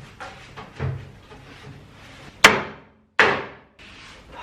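Sharp knocking blows, like hammer strikes, the two loudest about two and a half and three seconds in, each ringing briefly.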